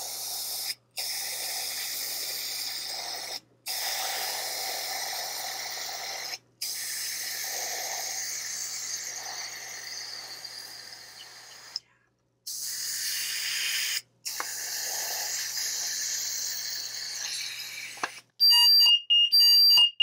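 Canned smoke aerosol hissing into a smoke detector's chamber in several long sprays with brief breaks. Near the end the alarm goes off with rapid, high, pulsing beeps: the detector has sensed the smoke and triggered.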